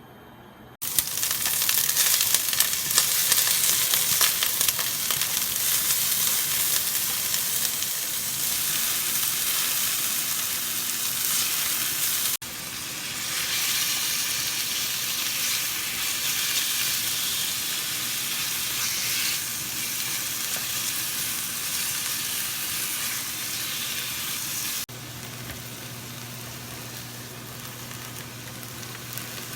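Food sizzling and frying in a hot pan while being stirred: a steady, dense hiss. It changes abruptly twice and is quieter after about 25 seconds in, with a low hum underneath.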